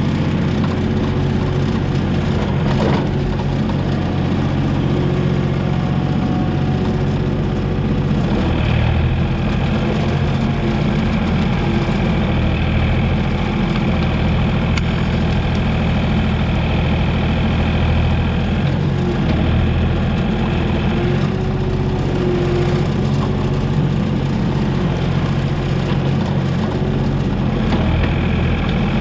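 Komatsu PC28 mini excavator's diesel engine running steadily. A higher-pitched whine joins it from about nine seconds in until about nineteen seconds, and comes back near the end.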